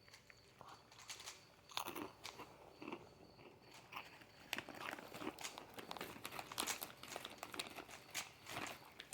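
3x3 Rubik's cube being turned quickly by hand: a fast, irregular run of small plastic clicks and rattles as the layers snap round.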